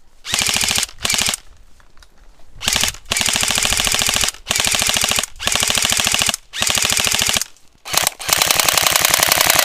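Airsoft rifles firing full-auto in a string of about eight rapid bursts. Most bursts last about a second with brief gaps between them, and a longer burst starts about eight seconds in.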